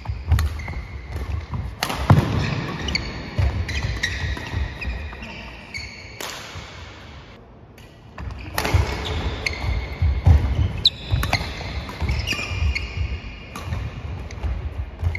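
Badminton doubles play in a large sports hall: sharp racket strikes on the shuttlecock, feet thudding, and trainers squeaking on the wooden court floor. There is a quieter lull in the middle before play picks up again.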